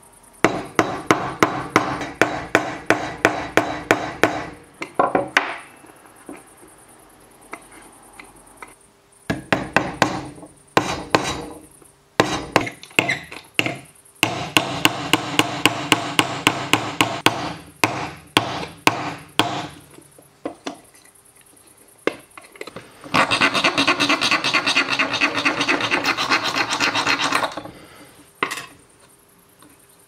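Small hammer tapping on a euro-coin latch fastened to a wooden box, in several runs of quick, light metal-on-metal blows about four a second. Near the end, about four seconds of steady filing.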